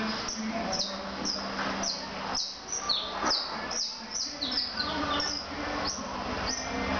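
Caged canary calling: a series of short, high chirps that slide downward in pitch, about two a second, over a steady background hiss.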